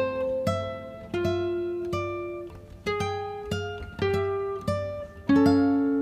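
Background music: a guitar picking notes one after another, each note struck sharply and ringing out as it fades, a new one about every half second to second.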